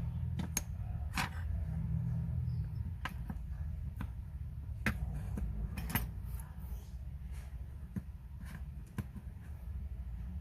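Small watchmaker's tools clicking and tapping on a Seiko 6119 automatic watch as it is taken apart: about a dozen short, sharp clicks at irregular intervals, over a low steady hum.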